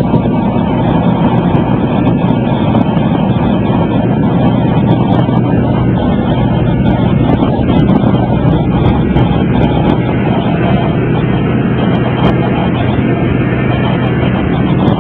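Small jump plane's engine running steadily with a constant low drone, mixed with wind noise, heard from inside the cabin.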